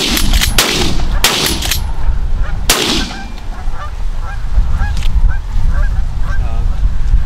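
A quick volley of shotgun shots, four or five sharp blasts in the first three seconds, fired at geese coming in over decoys. Geese keep honking throughout, over a low rumble of wind on the microphone.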